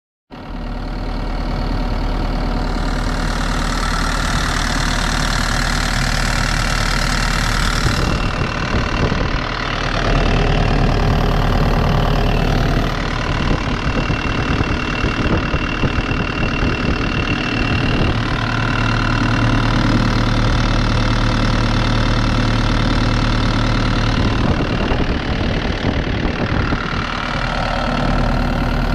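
Bobcat E50 mini excavator's diesel engine running steadily. Its note shifts several times, and a higher tone comes and goes over the engine every few seconds.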